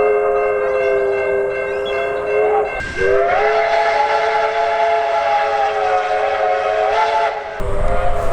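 A train's multi-note horn sounding two long blasts, a chord of several steady notes that slides up slightly at the start of each blast. It breaks briefly just under three seconds in, and the second blast runs about four and a half seconds. Near the end a low rumble takes over, with a fainter horn tone.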